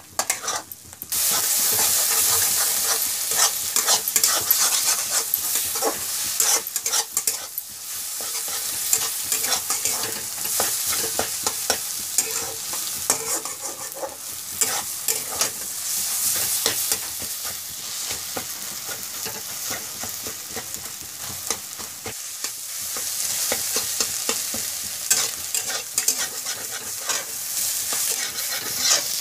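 Egg bhurji frying in a kadai, with a steady sizzle and a spatula scraping and clicking against the pan in quick, irregular stirring strokes, starting about a second in.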